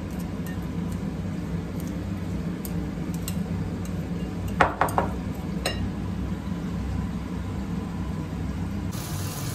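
A spoon stirring chopped tomato-and-onion salad in a glass bowl, clinking against the glass a few times about halfway through, over a steady low hum. Near the end, fish frying in a pan starts sizzling.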